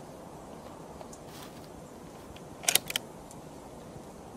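Handling clicks from a scoped bolt-action rifle on a padded shooting bench: a quick cluster of three or four sharp clicks a little before three seconds in, over a faint steady outdoor background. No shot is fired.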